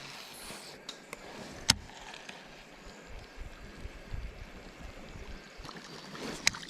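Quiet water sounds around a fishing kayak, broken by two sharp knocks, one under two seconds in and one near the end, with a few fainter ticks early on.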